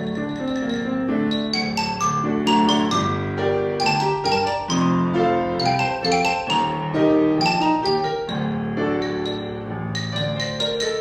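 Vibraphone played with mallets, accompanied by grand piano: many quick struck notes ringing over sustained piano chords.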